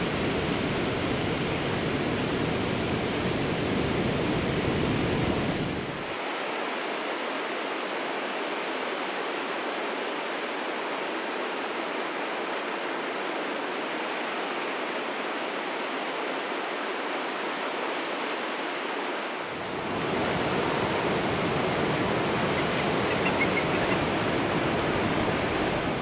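Steady wash of ocean surf breaking on a sandy beach. The deepest rumble drops away about six seconds in and comes back near twenty seconds.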